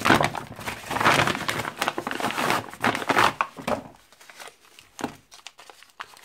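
Brown paper mailer crinkling and rustling as it is pulled open by hand and its contents are taken out, for about four seconds. After that come quieter, scattered rustles and clicks as the items are handled.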